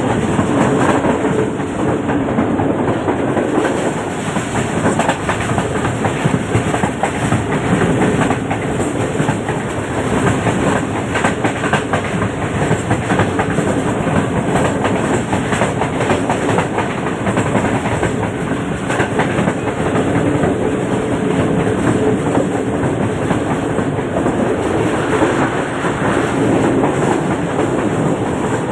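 Passenger train coach running steadily along the track, heard from inside: a continuous rumble and rush of the moving carriage with the clickety-clack of wheels over the rails.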